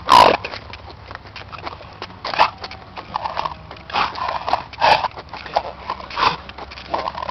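American bully dogs making short, irregular noises, a few seconds apart, the loudest and sharpest right at the start.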